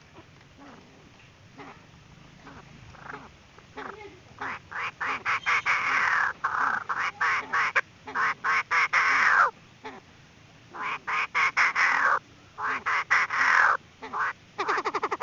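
Female Chinese francolin calling: scattered short notes quicken into loud, harsh chattering bouts, one long and two shorter with brief pauses between, then a rapid run of short clipped notes near the end.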